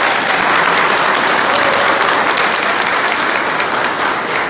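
A large seated crowd applauding loudly and steadily.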